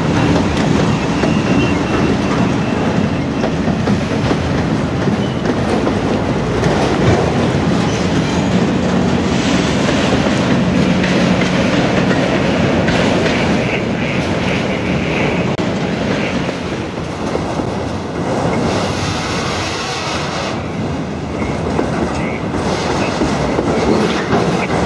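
Norfolk Southern freight train passing close by: the diesel locomotives drone as they go past, then the autorack cars roll by with steady clattering wheels on the rails. A thin high wheel squeal sounds through the second half.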